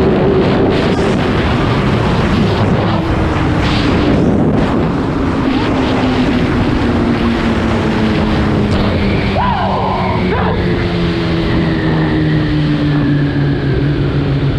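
Suzuki GSX-R1000 inline-four engine decelerating, its pitch falling steadily, under heavy wind rush on the onboard microphone.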